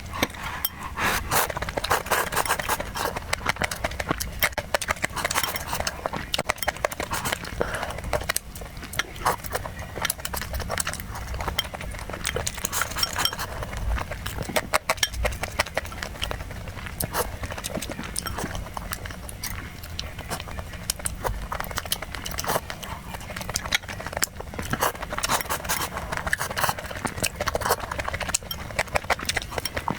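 Close-miked eating sounds: a person chewing and smacking food, a steady stream of quick wet clicks and crackles.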